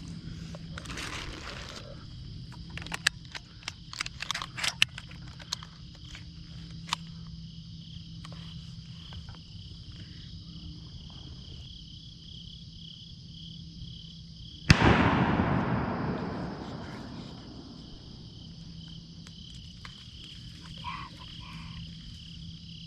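A single shotgun shot about fifteen seconds in, its report rolling away over two to three seconds, over a steady chorus of crickets. Scattered clicks and rustles come in the first seven seconds.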